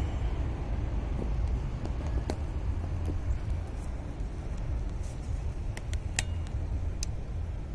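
Steady low outdoor rumble, with a few sharp, scattered clicks and taps of hand work on a car's upper radiator hose as it is being removed.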